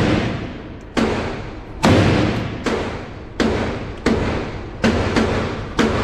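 A string of about eight rifle shots from an AR-style rifle fired in quick, steady succession, roughly one every 0.7 s, each a sharp report with a ringing echo off the walls of an indoor shooting range.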